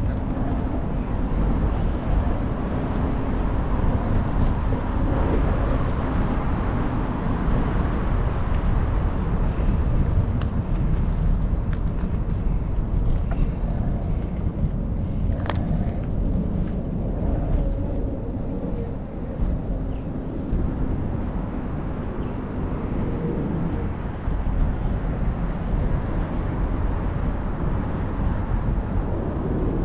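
Wind rushing over the microphone of a camera riding along on a moving bicycle: a steady low rumble, with a sharp click about halfway through.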